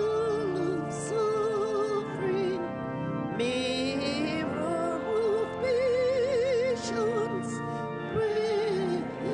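Hymn singing: a voice with a wide vibrato holds long notes in short phrases over steady, sustained accompanying chords.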